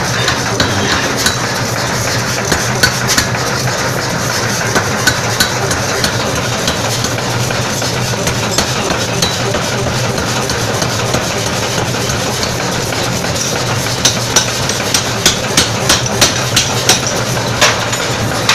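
Forging power hammer running with a steady mechanical hum, with sharp metallic clanks of hot metal and tongs on the die; near the end the clanks come in a quick run of about three a second.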